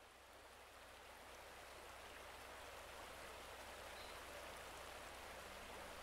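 Shallow river water running over a stony bed, a steady, even rush that swells gradually louder as it fades in from silence.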